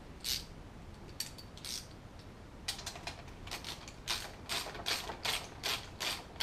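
Hand socket ratchet clicking as it runs screws into the water pump housing on an outboard lower unit. A few single clicks at first, then a steady run of about four clicks a second from about three seconds in.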